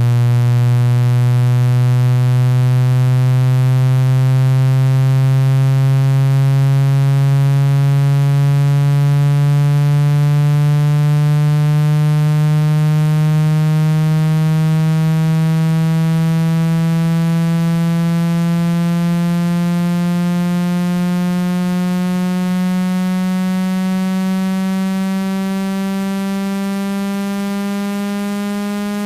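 Synthetic buzzing test tone with many overtones, gliding slowly and steadily upward in pitch: a low-frequency sweep played through a phone speaker to vibrate water out of it.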